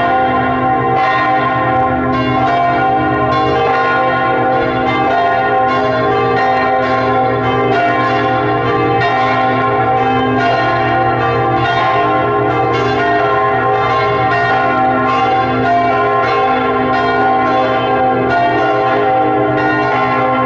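Several church bells ringing together in a continuous peal: steady, overlapping strokes with long-lasting tones.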